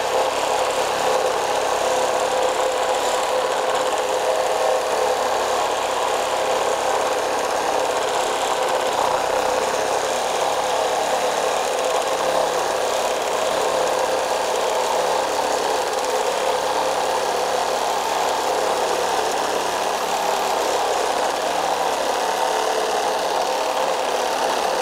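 Metabo HPT CR18DAQ4 18-volt cordless one-handed reciprocating saw with a half-inch stroke, running steadily as a beefier blade saws through a wooden board.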